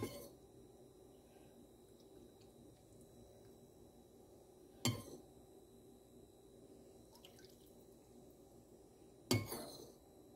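Metal ladle clinking against a dish three times, about four and a half seconds apart, as oily marinade is scooped and drizzled, each clink followed briefly by dripping liquid.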